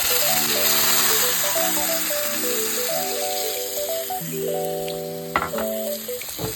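Chicken sizzling in hot oil in a pan heated high for stir fry, a dense, steady frying hiss that eases a little late on, with a couple of sharp knocks near the end. Background music with a melody plays under it.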